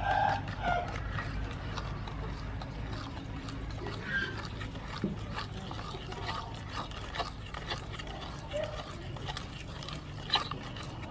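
A metal spoon stirring a liquid custard mix of beaten egg and palm sugar in a stainless steel pot, with frequent light clicks and scrapes of the spoon against the pot. Chickens cluck a few times in the background, loudest right at the start.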